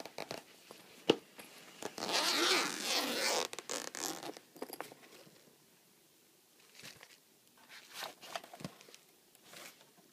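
Zipper on a fabric AlphaSmart Pro carrying case being pulled open, with one long pull about two seconds in and shorter tugs around it. After that come scattered light clicks and rustles of handling.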